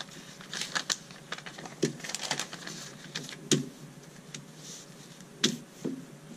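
Paper instruction sheet rustling and crinkling as gloved hands unfold it and smooth it flat on a table, with a few sharp clicks.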